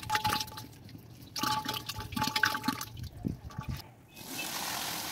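Curd squeezed from a bag splashing into a large pot of cooking liquid in two bursts. From about four seconds in, a steady rush of starchy water draining as parboiled rice is poured onto a cloth to strain.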